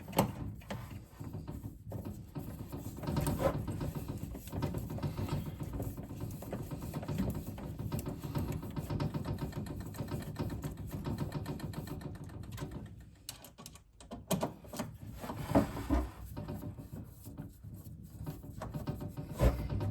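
Power screwdriver driving a machine screw into the Rudy head mechanism, whirring in a steady run for most of the time, stopping about two-thirds through, then a few knocks as parts are handled.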